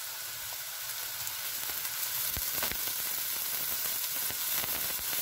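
Onions, garlic and shredded carrots frying in oil in a pan: a steady sizzle. It grows a little louder about two seconds in, with a few light clicks, as green peas are tipped into the pan.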